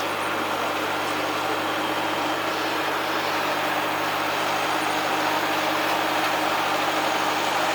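The engine of an ASV PT-60 tracked skid steer running steadily at an even speed, with a constant hum.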